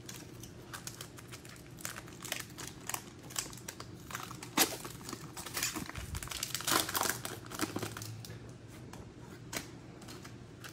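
Foil trading-card pack being torn open and crinkled in the hands, a run of irregular sharp crackles, loudest about four and a half seconds in and again around seven seconds.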